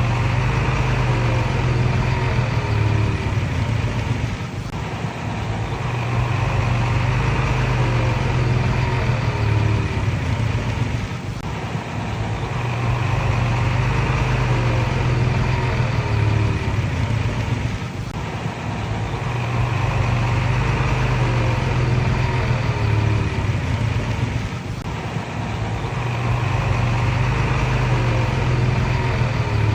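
Komatsu D31PX crawler bulldozer's diesel engine working while spreading landfill, its note swelling under load and easing off in a regular cycle about every seven seconds.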